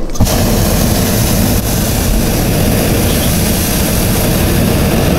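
Hot air balloon's propane burner firing: a loud, steady roar that starts abruptly a moment in.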